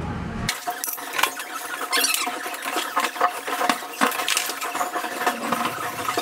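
Fast-forwarded sound of a stunt scooter being assembled: rapid clicks and clinks of metal parts, with high squeaky sliding sounds. It starts abruptly about half a second in.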